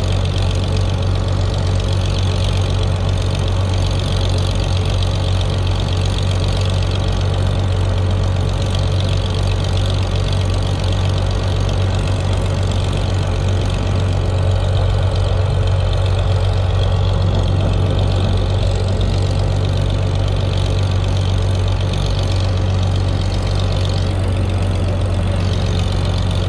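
Old farm tractor's engine running at a steady speed while driving, heard from right beside its upright exhaust stack and muffler: an even, unchanging low drone.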